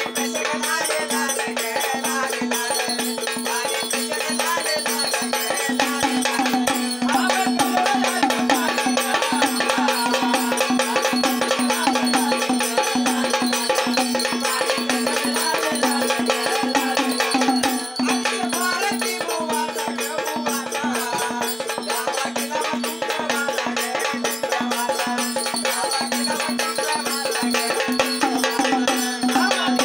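Live Maharashtrian Waghya-Murali folk music: a steady held drone under busy, fast rattling and jingling percussion.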